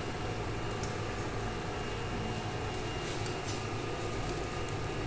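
A steady low mechanical hum with a faint hiss, and a few light clicks.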